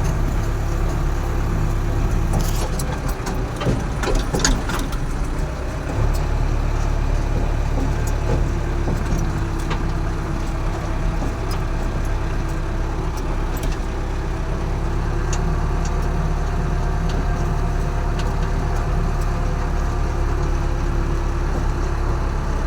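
Diesel engine of a JCB construction machine running steadily, with a cluster of sharp clanks and knocks from about three to six seconds in.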